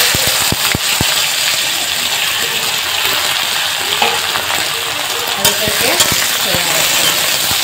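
Freshly added cut okra sizzling hard in hot oil in a kadhai, a steady frying hiss with a few sharp pops in the first second. A spatula stirs the okra about six seconds in, with a few clicks against the pan.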